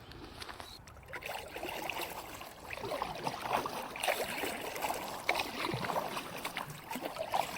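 Water of a shallow brook gurgling and trickling around a kayak as it moves along, in many small irregular splashes.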